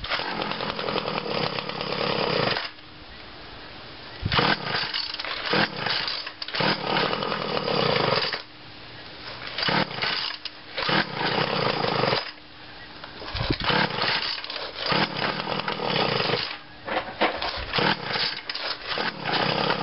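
Weed Eater GTI 19 string trimmer's two-stroke engine running on full choke, its throttle opened in about five bursts that drop back to a lower idle between them. It doesn't want to rev, a sign of a carburettor running rich and flooding with fuel.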